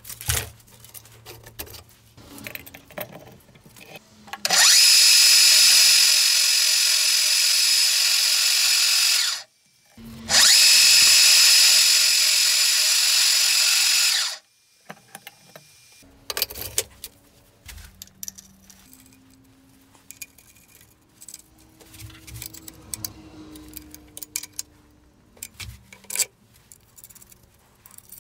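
Power drill running in two steady bursts of about five and four seconds, with a short pause between. Scattered clicks and knocks of handling follow.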